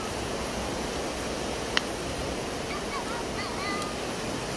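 Steady rushing noise of a fast river mixed with wind on the microphone, with one sharp click a little under two seconds in and a few short faint chirps near the end.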